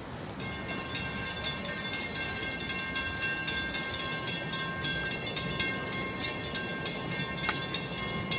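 Railroad grade-crossing warning bells ringing in a fast, even rhythm, with steady tones held underneath and a low rumble.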